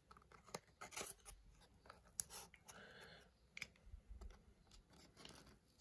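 Faint scratching and small clicks of a utility knife blade working into the tightly glued flap of a cardboard box.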